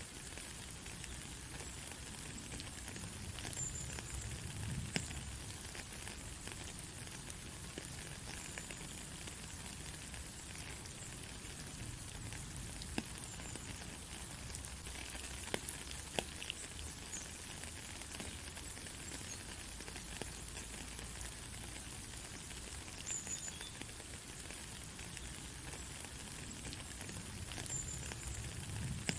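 Steady rain falling on a dirt road, an even hiss with scattered sharp drop ticks. A short, faint high chirp recurs every few seconds, and a soft low rumble swells twice.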